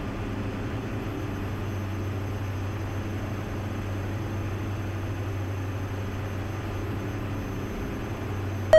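Steady cockpit noise of a Diamond DA-42NG Twin Star on final approach: its two Austro diesel engines and the airflow make an even drone with a low hum. A loud electronic alert tone cuts in right at the end, the start of a traffic alert.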